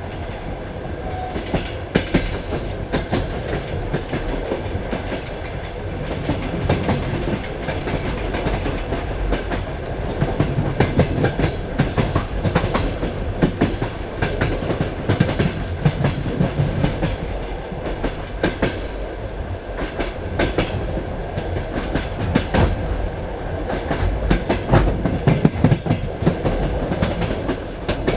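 Passenger train carriage running along the track: a steady rumble with frequent, irregular wheel clacks over rail joints.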